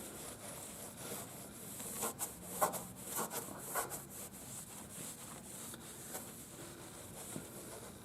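A cloth rubbing over a tractor's painted hood in repeated wiping strokes, busiest about two to four seconds in, as dried oxidation remover is wiped off.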